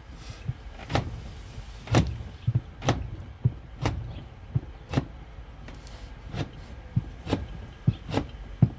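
Steel lathe tool being stroked back and forth on a leather strop charged with green polishing compound, with a sharp click or knock at each pass, about one to two a second. The stropping polishes and finishes the freshly honed edge.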